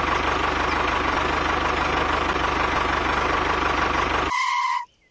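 Tractor engine running steadily with a rapid, even low pulse, cutting off suddenly about four seconds in. A brief high beep follows, then it goes quiet.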